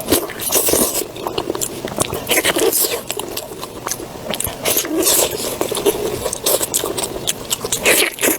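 Close-miked eating sounds: continuous wet chewing, biting and lip-smacking, with many sharp crackling clicks.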